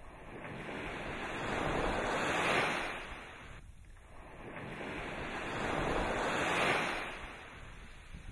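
Sea waves washing in: a rushing noise that swells up and dies away twice, each surge building over a couple of seconds and then fading.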